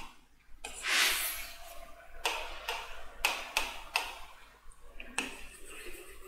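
Stylus tapping on an interactive smartboard's touchscreen: a series of sharp ticks, roughly half a second apart, as the pen toolbar is worked, with a brief rustle about a second in and faint pen strokes near the end.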